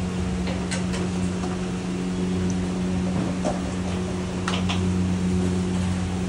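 Steady machine hum with a few light clicks, mostly about four and a half seconds in.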